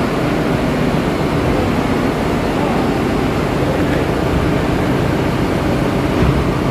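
Steady, loud machinery noise of a ship's engine room: an even rushing drone with a faint low hum under it, unchanging throughout.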